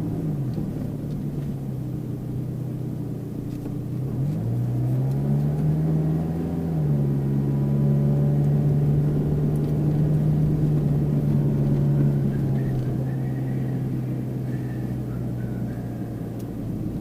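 A Mitsubishi Pajero Mini's small engine runs as the car drives, over low road rumble. About four seconds in the engine note drops and climbs again, then holds steady, getting a little louder through the middle before easing off.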